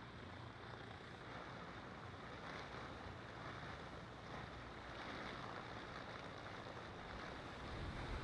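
Steady wash of moving water at a lake's edge, with wind rumbling on the microphone that grows stronger near the end.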